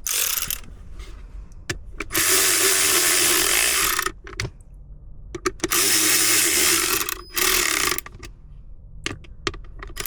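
Cordless power driver with a T20 Torx bit running twice, about two seconds each time, driving the two screws that hold the blower motor resistor, with small clicks and handling noise between the runs.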